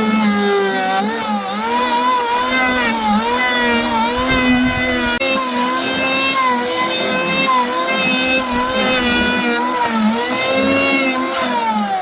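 Small engine running steadily, its pitch wavering up and down as the throttle varies.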